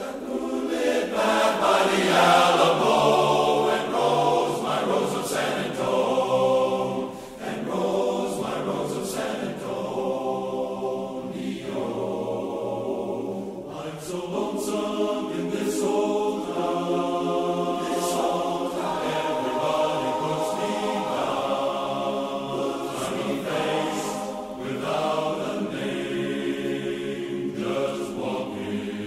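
Large men's barbershop chorus singing a cappella, a continuous passage of many voices in harmony.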